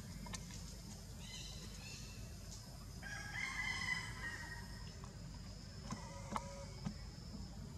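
Rooster crowing: one long drawn-out crow starting about a second in, followed near the end by a couple of short sharp calls.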